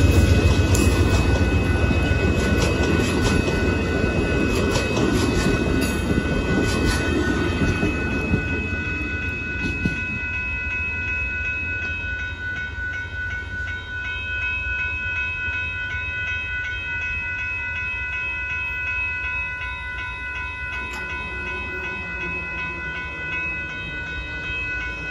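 Amtrak passenger train with bilevel Superliner cars passing over a grade crossing, its wheels clacking across the rails for the first several seconds, then fading away by about ten seconds in. The crossing's warning bell keeps ringing as a steady high tone throughout.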